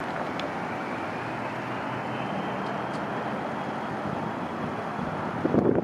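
Twin Honeywell HTF7000 turbofans of a Bombardier Challenger 300 running during takeoff: a steady jet rush with a faint whine that climbs slightly in pitch. Wind starts buffeting the microphone near the end.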